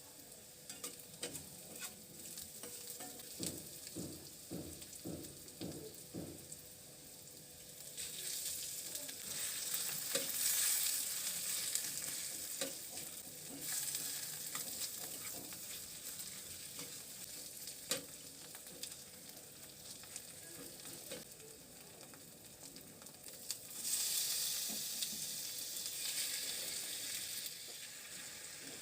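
Food sizzling in hot oil in a pan while it is stirred, with a utensil scraping and knocking against the pan now and then. The sizzle swells louder twice, about a third of the way in and again near the end.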